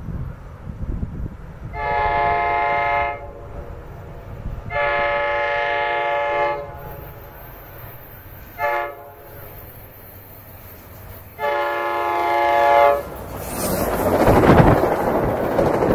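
Commuter train horn sounding the grade-crossing signal: two long blasts, a short one and a final long one, each a steady chord of several tones. Near the end the train passes close by, with a loud rushing roar of wheels and cars.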